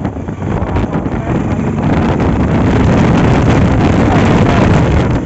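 Wind buffeting the microphone over a steady low rumble of a vehicle on the move, loud throughout.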